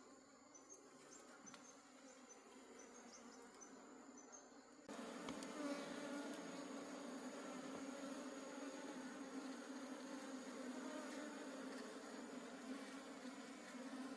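A mass of honey bees buzzing in a steady drone, growing suddenly louder about five seconds in.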